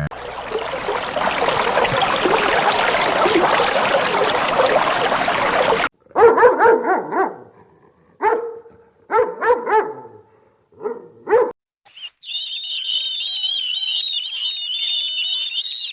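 A dog barking in a string of short, pitched barks. This comes between a dense rushing noise at the start and a high, wavering whistle-like call near the end.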